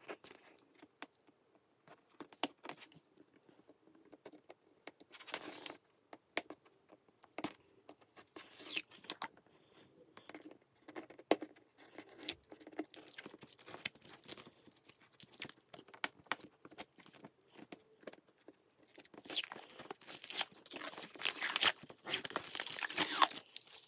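Protective paper masking being peeled and torn by hand off an acrylic sheet: scattered faint crackling and tearing, growing busier and louder in a run of peeling near the end.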